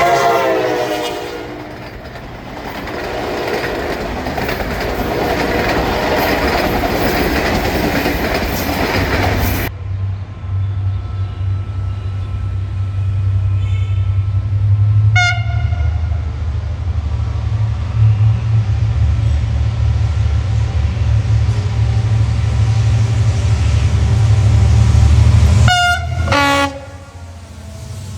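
Passing train: a horn blast dropping in pitch as it ends, then the loud rush and clatter of the cars going by. After an abrupt change comes a locomotive's low steady rumble, with a short horn toot in the middle and two quick horn blasts near the end.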